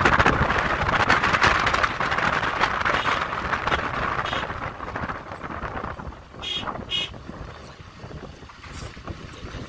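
Wind rushing and buffeting the microphone at the open window of a moving Chevrolet Colorado pickup, with tyre and road noise underneath; the rush eases off about halfway through. Two short high chirps sound near the end.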